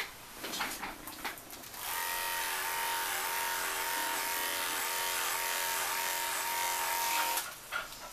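Small electric pet trimmer running with a steady buzz, its pitch wavering slightly, starting about two seconds in and switching off shortly before the end; a few brief handling sounds come before it.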